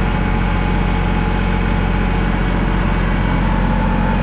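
Kubota L3301 tractor's three-cylinder diesel engine running steadily as the tractor drives along in medium range. A thin steady whine joins near the end.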